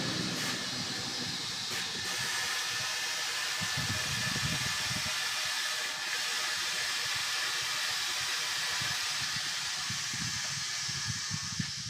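Compressed air hissing steadily.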